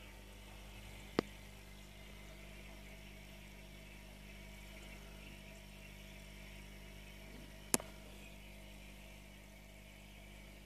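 Steady low hum and hiss of running aquarium equipment, with two sharp clicks, one a little over a second in and another about three seconds before the end.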